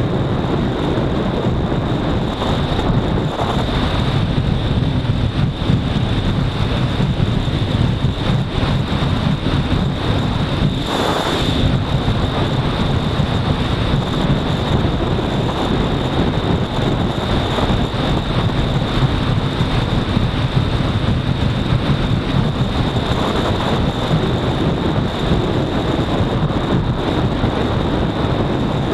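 Honda CBR250R's single-cylinder engine running steadily at speed, mixed with wind rush on the microphone. A brief burst of louder rushing noise comes about eleven seconds in.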